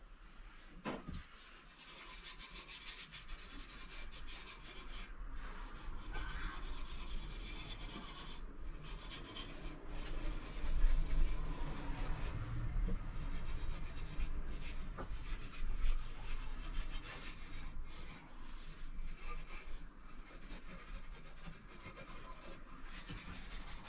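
Continuous rubbing or rasping, as of something being scraped or scrubbed by hand over a surface, with a few brief breaks.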